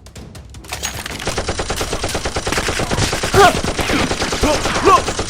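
Rapid automatic gunfire that starts about a second in and keeps going as a dense, sustained volley.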